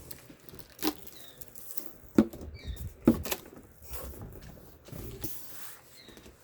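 A cardboard box being handled: light scratching and rustling, with three sharp knocks about a second apart and a few faint squeaks.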